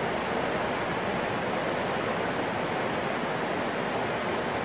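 Creek water rushing, a steady even wash of noise.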